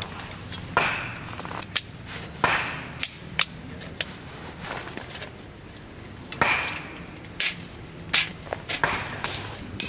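Sharp clicks and knocks from a folding metal camp table being assembled: the frame legs and perforated metal top panels clack against each other, with short rustles between the knocks.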